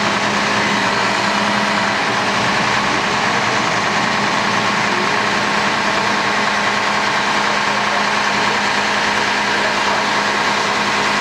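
Diesel engine of a Mack grapple truck running steadily while its Prentice knuckleboom loader hoists a load of storm debris.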